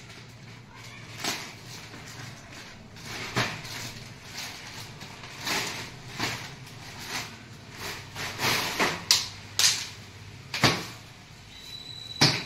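Clear plastic packaging crinkling and rustling in short, irregular crackles as a coil of black drip-irrigation tubing is worked out of its plastic bag. The crackles are loudest in the last few seconds.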